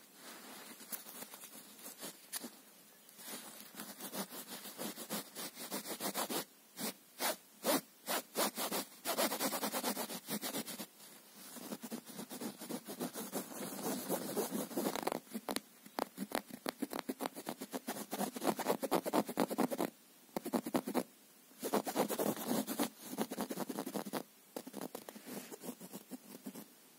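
A fabric toy mouse and its feathery tail brushing and scraping right against the microphone: quick, irregular scratchy rustling with a few short breaks.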